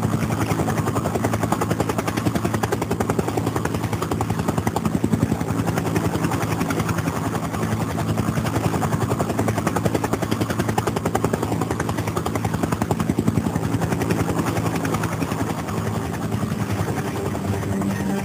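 A steady, fast, even pulsing with a low drone under it, in the manner of a running machine or rotor.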